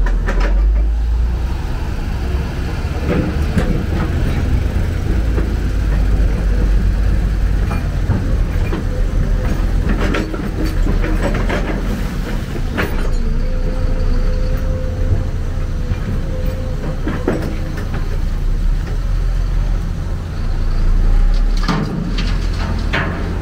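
Excavator working: its diesel engine runs with a heavy, steady low rumble, with sharp knocks every few seconds and a steady whine for a few seconds in the middle.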